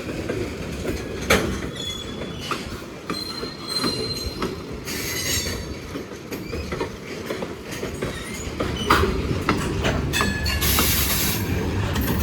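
Freight cars of a Norfolk Southern train rolling past: steady rumble with irregular clacks of wheels over rail joints, a brief high wheel squeal about three seconds in, and a louder stretch with a hissing squeal near the end.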